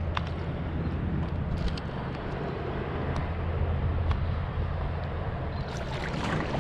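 Steady low rumble and hiss of wind and water around a fishing kayak on open water, with a few light clicks.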